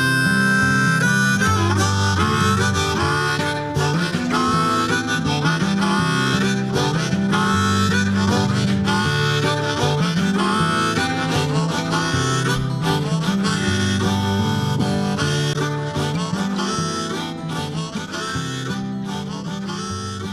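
Blues music: a harmonica solo over guitar, getting quieter near the end.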